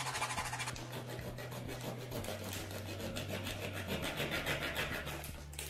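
A thin saw blade, held in the fingers, cutting through the neck of a plastic water bottle just below the cap. It rasps in quick, short back-and-forth strokes.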